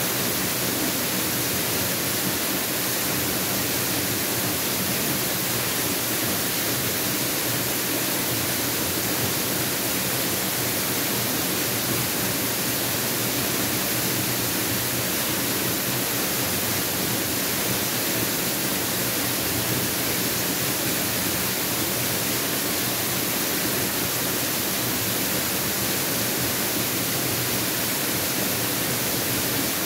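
Mountain waterfall: water falling and splashing, a steady full rushing hiss without change.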